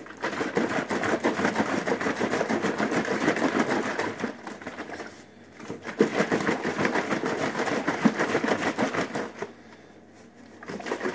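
Water sloshing in a plastic half-gallon milk jug shaken rapidly back and forth to dissolve baking soda, pausing briefly about five seconds in and again near the end.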